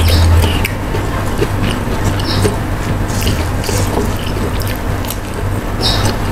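Close-miked wet chewing and mouth clicks of raw vegetables eaten with sambal, with fingers rubbing food across a stone mortar, over a steady low hum.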